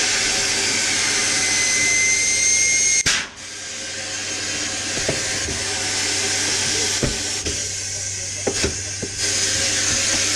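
Compressed air hissing loudly with a faint whistle in it, cutting off suddenly about three seconds in. A softer hiss follows and builds back to loud near the end, with a few short knocks and a steady low hum underneath.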